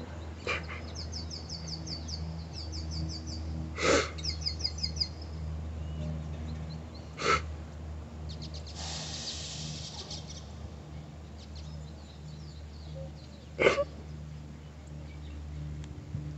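A woman crying quietly with her face in her hands: short sniffs and catches of breath every few seconds. Birds chirp during the first few seconds, and a steady low hum runs underneath.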